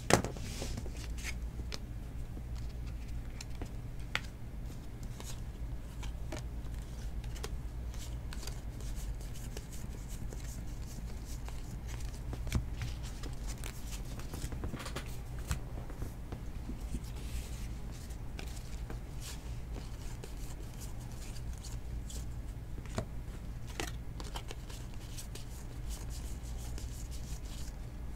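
Trading cards and a paper sheet handled on a table: scattered soft rustles, slides and small clicks, with a sharp tap at the very start, over a steady low hum.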